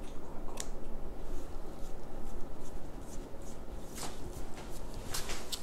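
Hair being trimmed around the ear: a few sharp scissor snips, with hair and hands rustling against the head.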